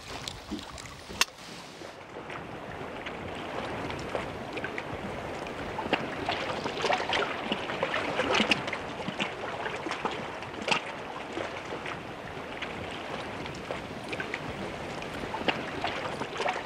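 Choppy sea slapping and splashing against a small open boat, with wind noise and frequent sharp splashes; it grows louder a few seconds in.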